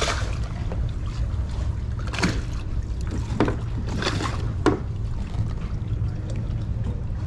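Water lapping and trickling against a plastic kayak hull under a steady low rumble, with a handful of short, sharp sounds spread through the middle.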